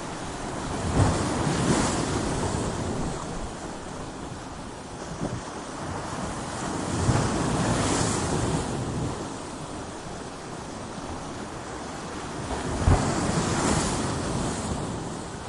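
Ocean waves crashing against coastal rocks: three waves break about six seconds apart, each hitting with a sharp low thud and then washing off in a long hiss, over a steady surf.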